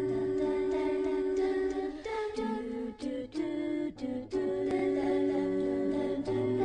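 Background music: long held notes, sung without words, that change pitch a few times.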